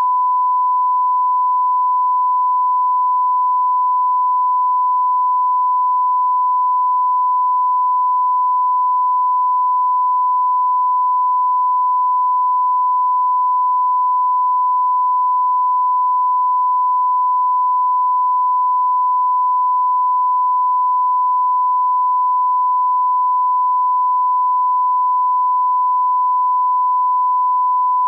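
Broadcast line-up tone: a single steady 1 kHz reference tone, unbroken, played with colour bars to set audio levels.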